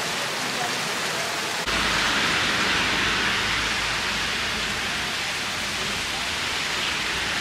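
Heavy rain falling, a steady hiss of rain. About a second and a half in, the sound jumps abruptly louder and a low rumble comes in underneath.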